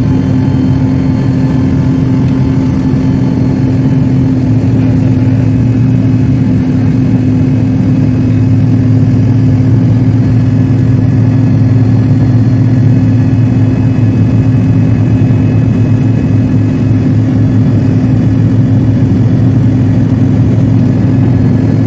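Airliner cabin noise during the climb after take-off: the jet engines and airflow make a loud, steady roar with a low drone underneath, heard from inside the cabin.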